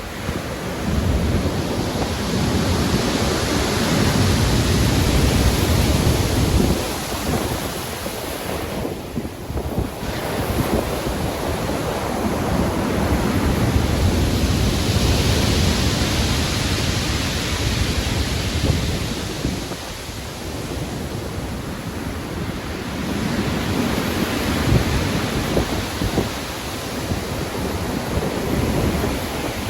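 Stormy surf: heavy ocean waves breaking and washing in, the roar swelling and ebbing in long surges several seconds apart, with a deep low rumble beneath.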